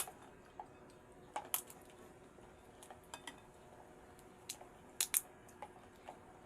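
Cutlery clinking and clicking against a dish while eating: about a dozen light, sharp clicks at irregular intervals, the loudest two in quick succession about five seconds in.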